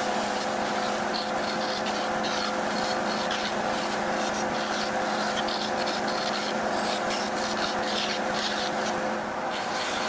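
Bandsaw running with a steady motor hum while the blade cuts wood, giving irregular short bursts of hissy scraping.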